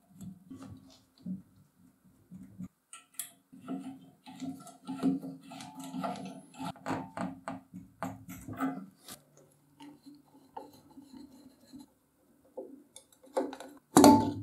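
Metal air-compressor parts being handled and cleaned: clinks, scrapes and knocks of metal on metal, with one louder knock near the end.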